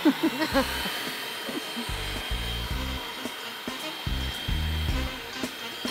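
Electric stand mixer running steadily under a draped towel, whipping chilled cream and requeijão into a savory whipped cream, with a thin steady whine over its motor noise. Background music with deep bass notes plays over it from about two seconds in.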